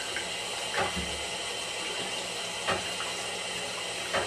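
Bathroom faucet running water over a scored glass olive jar, a steady splashing, with three soft knocks spread through it. The water is heating the jar so the glass will split along the score line once it is switched to cold.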